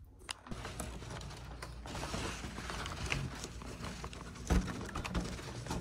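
Handling noise from a handheld camera carried through rooms, with footsteps: rustling with scattered small clicks and knocks, and one louder thump about four and a half seconds in.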